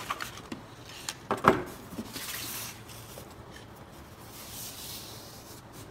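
Handling noise as a MacBook Pro is lifted out of its cardboard box tray: a few knocks and clicks, the sharpest about a second and a half in, then a short stretch of rubbing and sliding against the packaging.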